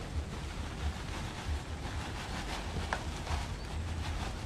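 Steady low wind rumble on the microphone, with faint rustling and soft patters as organic fertilizer is poured from a plastic sack onto garden soil.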